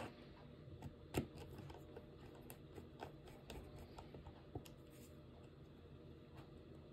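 Faint, irregular clicking of a computer keyboard being typed on, a dozen or so keystrokes with one louder click about a second in, over a low steady hum.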